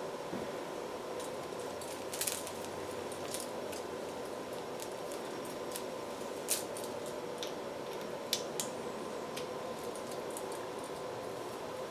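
Hands handling wires and plugging logic analyzer leads into a connector: a few short sharp clicks and rustles over a steady low hum.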